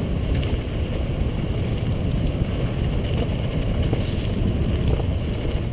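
Wind buffeting the microphone and bicycle tyres rumbling over a dirt trail at speed, with a few faint clicks and rattles.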